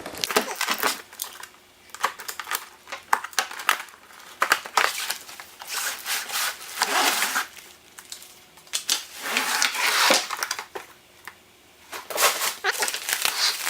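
Plastic packaging crinkling and rustling in irregular bursts as seatbelts are pulled out of their box and bags, with scattered clicks of the hardware and buckles knocking together.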